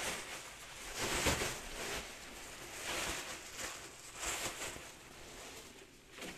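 Cotton dust sheet rustling as it is handled and folded by hand, with a few louder swishes of the cloth.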